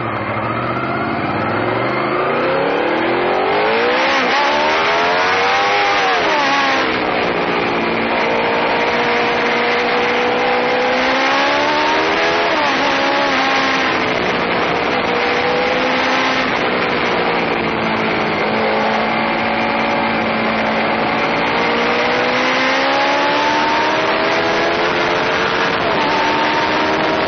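Honda VFR800FI's V4 engine accelerating hard, its pitch rising and then dropping sharply at each upshift, about 6 and 13 seconds in. After that it pulls steadily at cruising speed, climbing slowly near the end, with wind rushing over the microphone.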